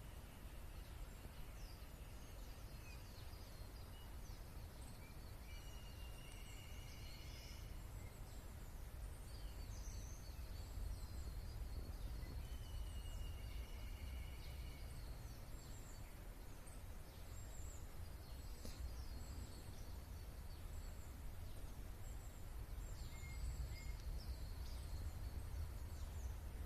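Several wild birds calling: short high chirps scattered throughout, and twice a longer, steady higher-pitched call lasting a second or two, over a constant low rumble.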